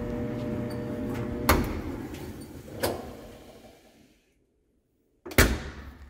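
GE Spacemaker stacked dryer running with a steady hum and no grinding, its noise repaired. About one and a half seconds in a click cuts the motor off, and the drum winds down to silence over the next couple of seconds. A sharp knock from the dryer door comes near the end.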